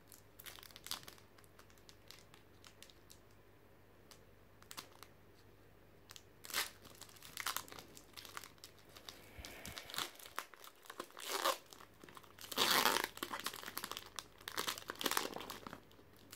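Foil wrapper of a Pokémon booster pack crinkling and tearing as it is opened by hand: faint and sparse at first, busier from about six seconds in, loudest a few seconds before the end.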